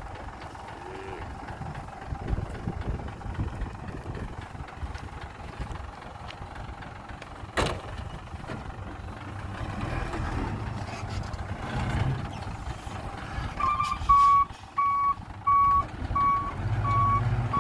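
Dump truck engine running with a low rumble, with one sharp knock about halfway through; near the end its reversing alarm starts, a steady beep about one and a half times a second.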